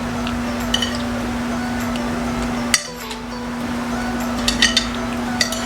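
Metal cutlery clinking against dishes while eating: a few sharp clinks spread out, with a cluster near the end, over a steady low hum.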